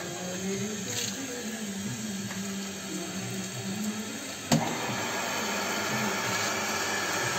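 The electric motor of a CRI vertical multistage pump on a reverse-osmosis plant, running with a steady hum just after start-up. About four and a half seconds in there is a sharp click, and the running noise then gets louder and fuller.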